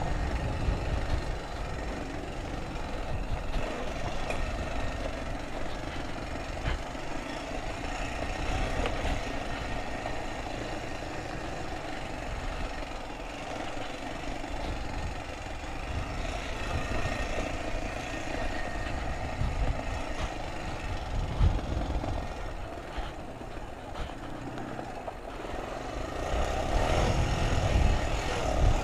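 ATV engine running as the four-wheeler is ridden along a dirt trail, growing louder for a couple of seconds near the end.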